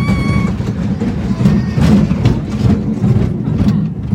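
Children's roller coaster train rumbling and clattering along its track, with repeated sharp clacks from the wheels. A child's high, held scream stops about half a second in.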